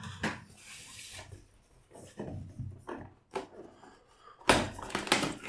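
A microphone's retail box being opened by hand: the packaging scuffs and rubs, with a few light knocks and a louder knock about four and a half seconds in.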